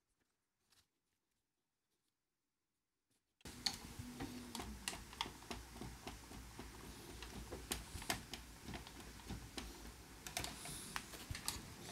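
Near silence for about three and a half seconds, then irregular small clicks and taps of hands and a screwdriver working on the radio's chassis and boards.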